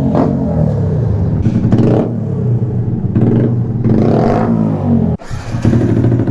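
Yamaha 125 cc single-cylinder four-stroke motorcycle engine through a loud aftermarket exhaust, revving under way with its note rising and falling. The sound drops out briefly about five seconds in, then picks up again.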